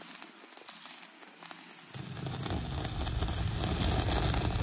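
Chicken pieces sizzling and crackling on a miniature wire grill over a small open fire. About two seconds in, a low rumble grows louder under the crackle.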